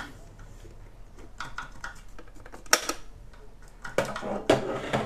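Irregular mechanical clicks and clunks of buttons and keys being pressed, on a Commodore datasette tape recorder and a Commodore PET 2001 keyboard.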